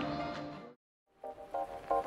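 Background music: one track fades out and stops, there is a brief moment of dead silence, and a new track starts about a second in with short, repeated chords in a bouncy rhythm.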